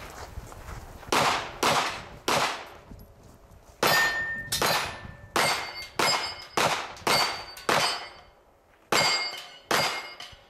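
A pistol-caliber carbine fires about a dozen rapid shots in quick pairs and strings, with short pauses between groups. Several shots are followed by a brief metallic ring, typical of steel targets being hit.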